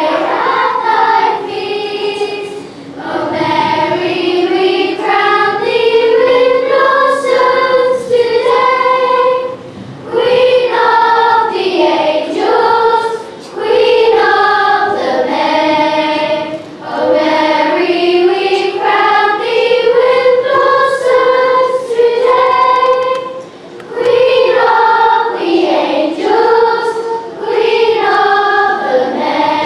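A group of children singing together, a sung melody in phrases of a few seconds with brief pauses for breath between them.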